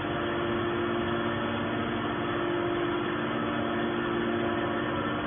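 Hydraulic metal wire baler's motor and pump running steadily, a constant hum.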